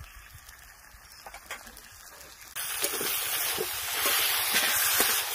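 Chicken pieces frying in spice paste in an aluminium kadai, sizzling while a metal spatula scrapes and stirs them: the meat being sautéed dry with the masala (kosha). The sizzle is faint at first and turns suddenly louder about two and a half seconds in.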